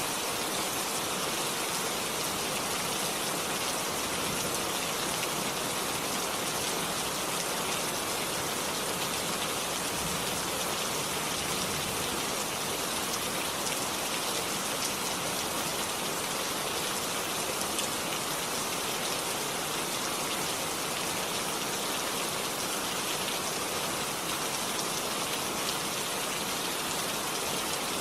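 Steady heavy rainfall, a dense even hiss of drops with fine scattered patters.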